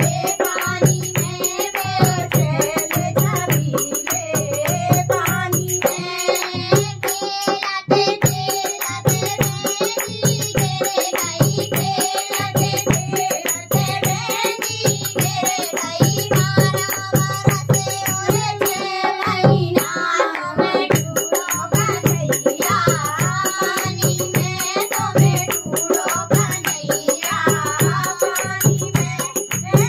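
Two girls' voices singing a Hindi Krishna bhajan, over a steady low drum beat and a jingling hand percussion played with the hands.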